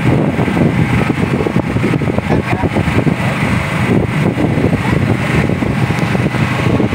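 A fishing boat's engine drones steadily.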